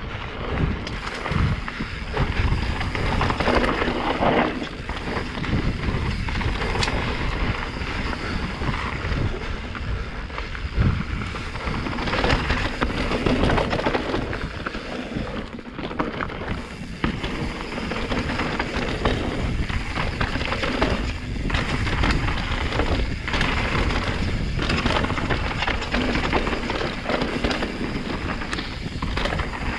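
Santa Cruz Megatower mountain bike descending a rough dirt and rock trail: tyres crunching and skidding over stones, with the frame, chain and suspension rattling and knocking over the bumps, and wind rushing over the microphone.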